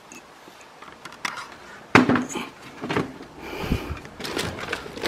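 Handling knocks as an EGO cordless leaf blower is taken down and fitted against a wall hook: one sharp knock about two seconds in, then scattered lighter clicks and knocks.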